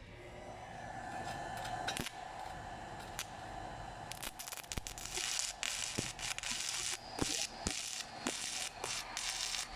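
Portable electric welding machine's arc crackling and hissing in uneven bursts, striking and breaking off again and again through the second half, with a steady hum before it.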